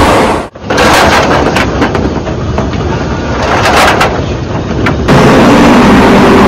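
Green bean processing machinery. There is loud steady noise at first, then a sudden break about half a second in. After the break, beans tumble off a rotating drum onto a conveyor with irregular clattering. From about five seconds in, the processing line's conveyors and motors give a loud steady hum.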